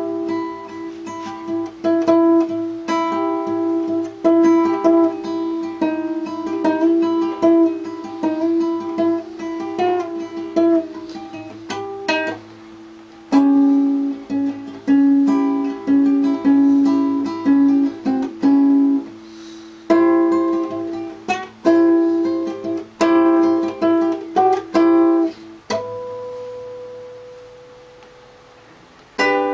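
Nylon-string classical guitar played fingerstyle: a plucked melody over ringing notes, with a short break about twelve seconds in. Near the end a single note is left to ring and fade before the playing starts again.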